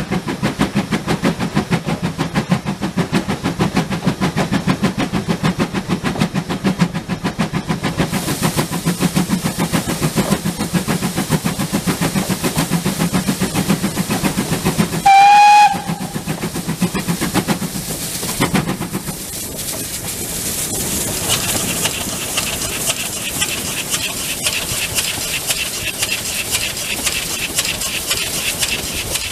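Steam tank locomotive hauling a train, its exhaust beating in a quick, even rhythm over the rattle of the train. About halfway through the whistle gives one short, shrill toot. Soon after, the beat stops and a steady hiss of steam carries on.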